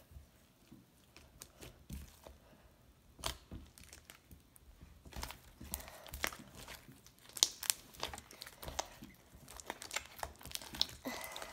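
Butter slime being kneaded by hand with Model Magic clay worked into it, squishing and crackling. A few scattered clicks at first, then dense, louder crackles and pops from about halfway through as the squeezing gets harder.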